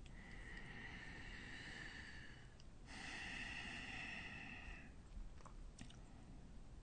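Faint breathing close to the microphone: two long breaths of about two seconds each, one after the other, followed by a couple of faint clicks.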